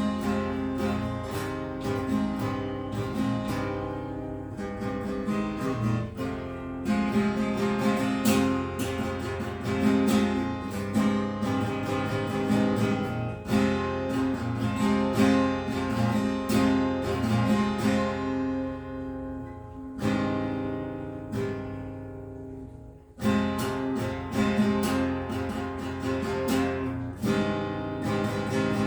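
Acoustic guitar strumming chords in an instrumental passage without singing. About twenty seconds in, a chord is left to ring and die away. A few seconds later the strumming starts again strongly.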